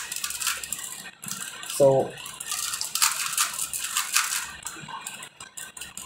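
Plastic 3x3 Rubik's cube being turned quickly in the hands, its layers clicking and rattling in a fast, uneven run of turns.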